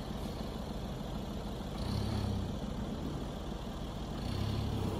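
Dacia Duster's engine running under load as the SUV climbs out up a sandy bank, growing louder twice, about two seconds in and again near the end.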